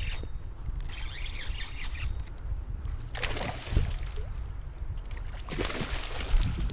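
A hooked bass thrashing at the water's surface close to the bank while being played on the rod, splashing in three short bursts: about a second in, about three seconds in and about five and a half seconds in.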